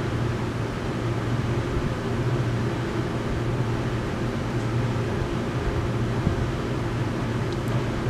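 Steady room noise: a constant low hum with an even hiss over it, and no distinct events.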